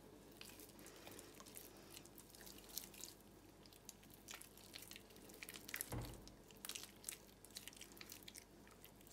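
Faint wet squishing and small sticky clicks of hands pulling apart a raw pike roe skein, with one soft low thump about six seconds in.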